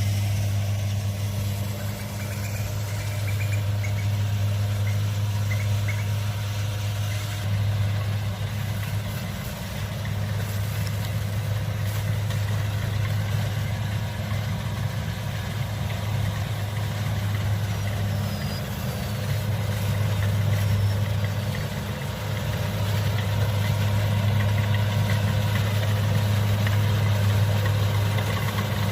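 Kubota DC70 combine harvester's diesel engine running steadily, a low even hum that swells and eases slightly a few times.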